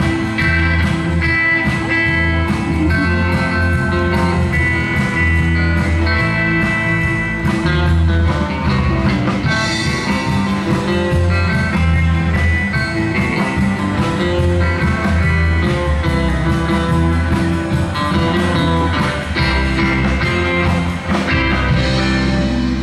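Live band playing amplified music: electric guitars and electric bass guitar over a drum kit, with a strong, steady bass line.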